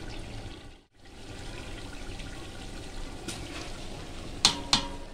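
Chicken and gravy sizzling in an aluminium pot as soaked basmati rice is tipped in on top. Two sharp clinks of a metal ladle against the pot come near the end.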